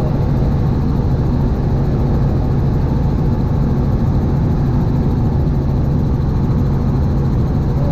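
Steady drone of a light helicopter's engine and rotor in cruise flight, heard from inside the cabin: a constant low hum with an even rush over it, unchanging throughout.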